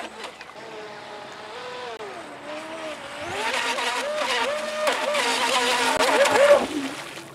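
Feilun FT012 RC racing boat's brushless motor whining at speed on a 3S LiPo. Its pitch rises and falls with the throttle, and it fades away near the end.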